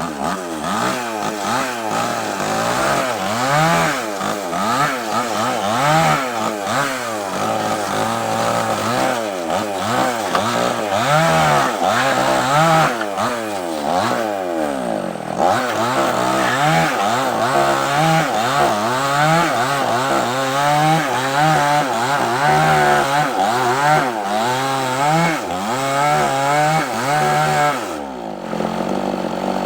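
Chainsaw running at full throttle while cutting through a large sengon log, its engine pitch rising and falling over and over as the chain bites and frees in the wood. The revs drop briefly near the end, then pick up again.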